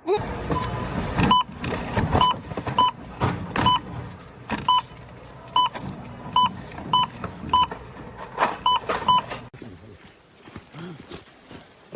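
About a dozen short electronic beeps at irregular intervals among knocking and rattling, which stop about nine and a half seconds in and leave only faint scattered clicks.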